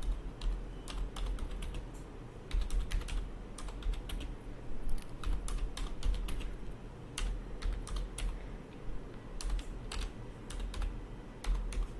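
Typing on a computer keyboard: irregular runs of key clicks as a short Java program is keyed into a text editor.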